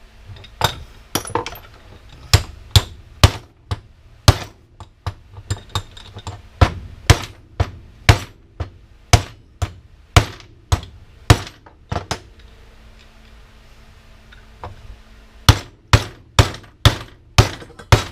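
Repeated hammer blows on parts of a dismantled power washer, roughly two a second. The blows stop for about three seconds and then resume.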